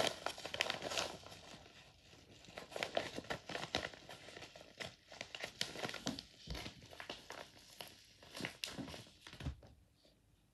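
Yellow mailer envelope being torn open and crinkled by hand: a dense run of crackles and rips that stops about a second before the end.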